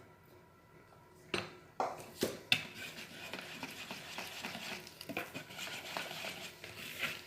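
A few sharp knocks of a utensil against a mixing bowl, then steady stirring of cake batter, with a scraping sound and small clicks against the bowl.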